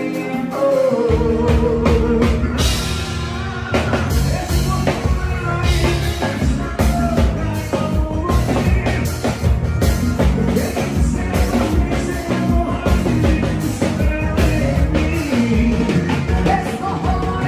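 Rock music with a full drum kit and a sung melody; the bass and drums come in about a second in.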